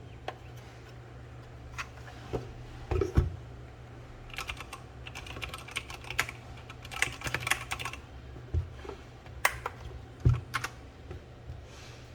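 Typing on a Keychron K8 mechanical keyboard with linear Gateron Red switches: uneven key clacks, scattered at first, then a quick flurry through the middle, with a couple of heavier knocks.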